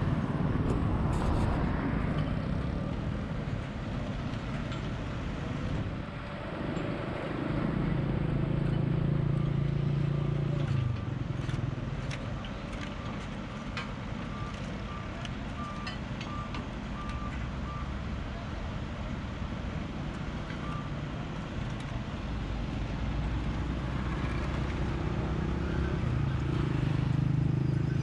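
Motor engine noise from vehicles on a road bridge and machinery, with a steady engine drone that swells twice. In the middle there is a run of short, evenly spaced beeps, a little more than one a second, like a reversing alarm.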